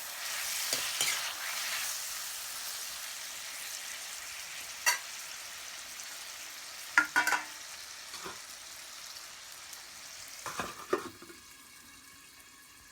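Pork frying and sizzling in a pan. A utensil knocks against the pan now and then as the meat is stirred. The sizzle fades gradually and drops away near the end.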